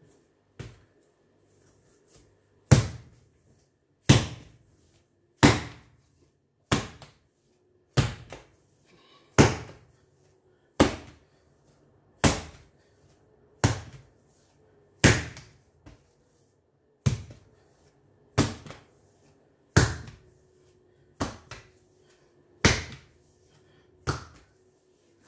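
Bread dough being lifted and slapped down onto a granite countertop over and over, a thump about every second and a half, while it is kneaded until smooth.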